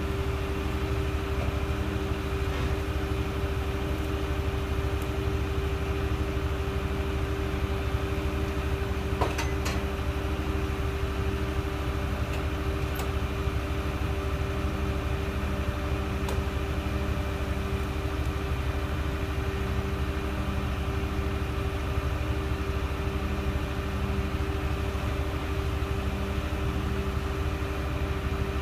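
Heavy machinery engine running steadily with a constant hum while a concrete pump's hydraulic boom unfolds. One short click about nine seconds in.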